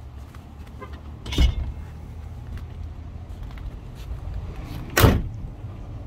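A 1969 Chevrolet Camaro's door: a clunk about a second and a half in, then the door slammed shut near the end, the louder of the two, over a low steady rumble.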